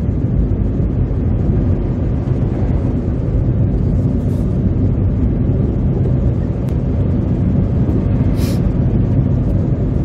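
Steady low rumble of a car driving on a slushy winter road, heard from inside the cabin: engine and tyre noise. A brief hiss comes about eight and a half seconds in.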